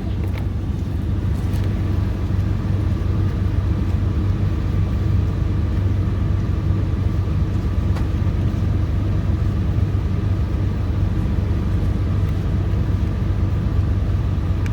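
Steady low drone of a Greyhound coach's diesel engine heard inside the passenger cabin, with a faint high whine above it.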